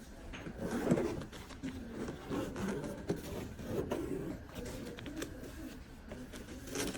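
Handling noise from unboxing a GB/T-to-CCS2 EV charging adapter: rustling of packaging with scattered light clicks and knocks.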